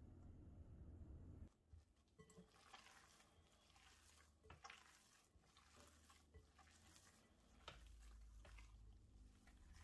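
Faint wet squishing and crackling of minced pork being squeezed and mixed with seasonings by a gloved hand in a glass bowl, over a low steady hum that drops away about a second and a half in and returns near the end.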